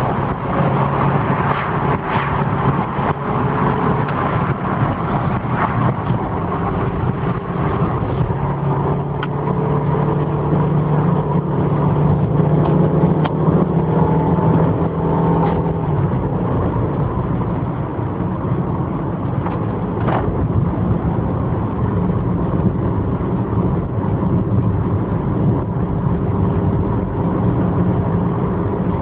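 Subaru Impreza's 1.5-litre naturally aspirated flat-four engine and tyre noise heard inside the cabin through a mobile phone's microphone, driving steadily. The engine note climbs gradually for several seconds, then drops back about halfway through.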